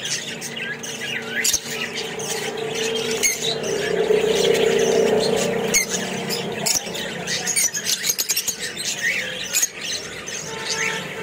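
A small flock of Fischer's lovebirds chattering, with many short shrill chirps and squawks overlapping throughout. A steady low hum swells in the middle and fades away.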